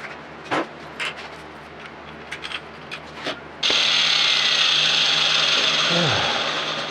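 A few light knocks of the steel workpiece being handled, then a power grinder starts grinding a steel block flat about halfway through, with a loud, steady, high hiss of abrasive on metal.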